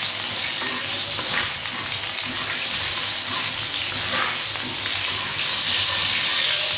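Cumin seeds sizzling steadily in hot oil on a tawa griddle, stirred and scraped around with a spatula. The seeds are being fried to a light brown to bring out their flavour.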